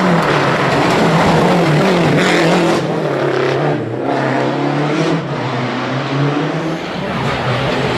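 Rally car engine running hard on a special stage, its revs rising and falling several times as it changes gear and lifts off the throttle.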